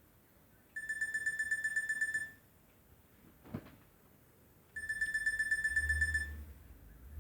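Nokia 6233 mobile phone playing a beeping ringtone through its speaker: bursts of rapid high beeps, each about a second and a half long, repeating every few seconds. A single click falls between the two bursts.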